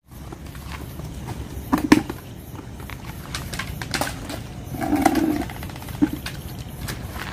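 Street dogs and puppies crowding in to be fed, with a few short yelps and scattered clatter as plates and a bucket are set down on the road. The loudest knock comes about two seconds in, and a short yelp comes about five seconds in.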